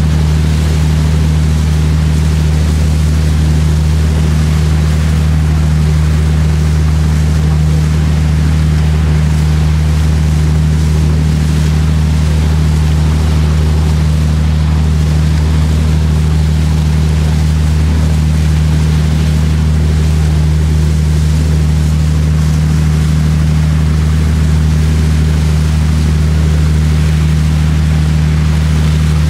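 Sightseeing boat's engine running at a steady cruise, a loud low drone that holds even, under a constant hiss of rushing water.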